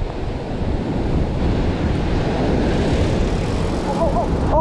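Ocean surf breaking and washing against a rocky shoreline ledge, with wind buffeting the microphone in a steady low rumble.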